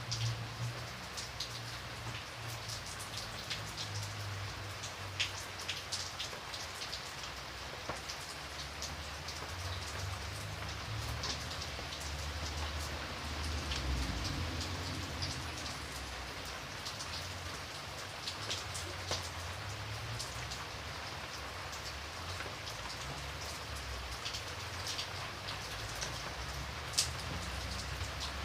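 Steady rain falling, with individual drops clicking sharply and irregularly over a continuous hiss, and a low rumble underneath.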